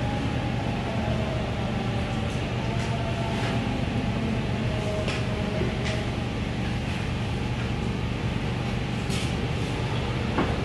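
Steady low mechanical hum and rumble, like a machine or fan running, with a few faint light clicks.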